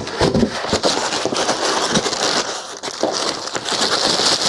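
Thin clear plastic bag rustling and crinkling as hands pull it off foam packing blocks, with many small irregular crackles.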